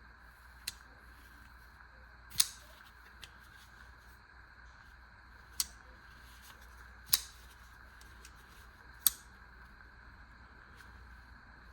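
Crescent 3.5-inch harpoon-blade pocket knife on ball bearings being flicked open and snapped shut: a series of about five sharp clicks, one to two seconds apart.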